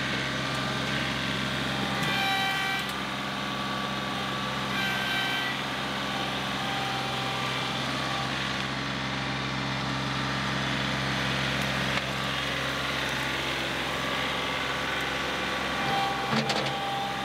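John Deere 2038R compact tractor's three-cylinder diesel engine running steadily under load while the front loader scoops into and dumps a dirt-and-debris pile. A higher whine rises twice for about a second, and the engine gets louder near the end as the tractor passes close.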